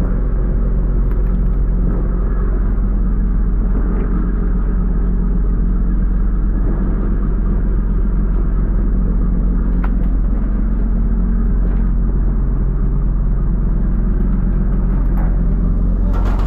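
A pole-and-line tuna boat's engine running steadily, a deep even drone that does not change, with a few faint knocks on deck.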